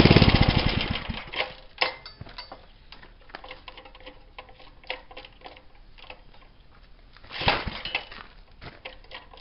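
Small engine that has sat unstarted since 2014 running briefly on a squirt of gas, dying out within the first second or so. After a few seconds of scattered clicks and knocks it fires again briefly about seven and a half seconds in. It won't keep running because the tank is out of gas.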